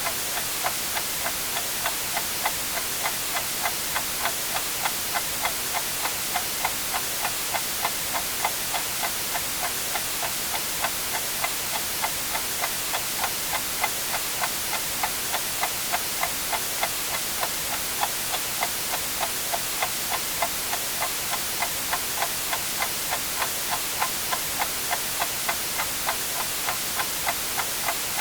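Clock ticking steadily about twice a second over a constant hiss of white noise.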